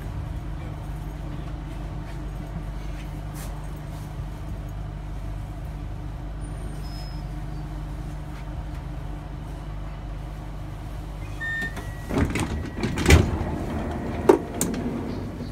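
Steady low rumble of a train, then near the end a high beep followed by a run of loud knocks and bangs, typical of the train's sliding passenger doors closing.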